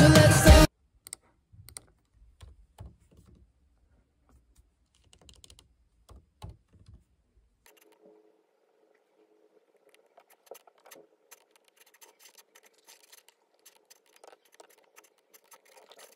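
Typing on a laptop keyboard: quick, irregular key clicks over a faint steady hum. Before it, the music cuts off within the first second, followed by a few seconds of scattered soft clicks and rustles.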